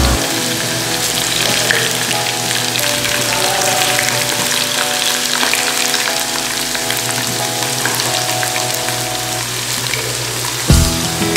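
Halved potatoes sizzling steadily as they shallow-fry in hot oil in a nonstick pan. Soft background music plays underneath, and a louder bass beat comes in about a second before the end.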